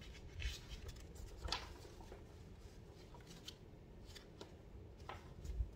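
Faint rustling and crinkling of stiff paper as a long accordion-folded paper insert is opened out, with a few separate crackles.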